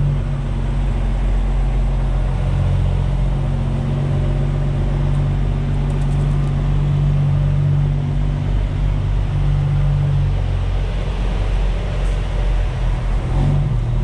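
Semi truck's diesel engine running steadily at low revs, heard from inside the cab; its note shifts about ten and a half seconds in.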